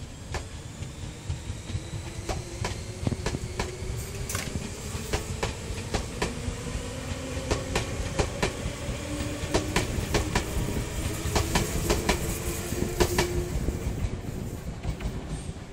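Tobu Ryomo limited express electric train pulling away from a station stop and running past. Its wheels click over the rail joints, the clicks coming faster as it gathers speed, over a low rumble and a faint rising motor whine. The sound dies down near the end as the last car goes by.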